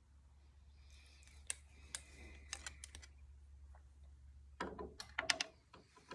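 Light clicks and taps of metal conduit being handled and fitted against the engine, scattered at first, then a quick cluster of sharper knocks near the end, over a faint steady low hum.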